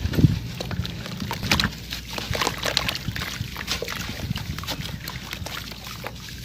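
Crunchy sand-cement chunks being crushed and crumbled, giving a dense, irregular run of small gritty crackles and cracks, with a couple of heavier crunches at the start.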